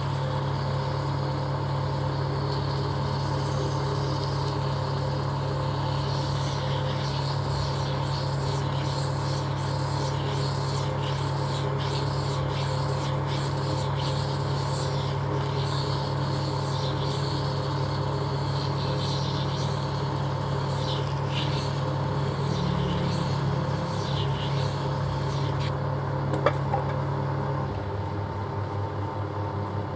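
Metal lathe running with a steady low hum while abrasive cloth rubs and scrapes against the spinning workpiece to polish it. Near the end a sharp click, after which the hum falls off and wavers as the lathe winds down.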